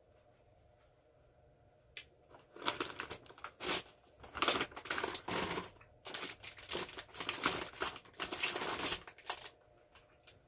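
A plastic snack wrapper being crinkled and handled, a run of crackling rustles starting about two seconds in and stopping shortly before the end.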